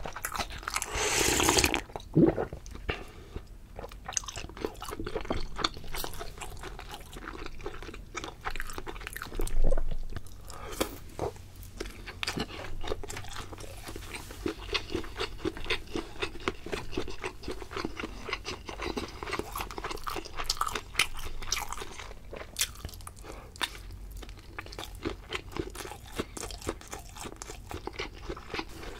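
Close-miked eating: broth sipped from a glass bowl near the start, a sharp knock, then steady crunchy chewing with many small irregular crackles.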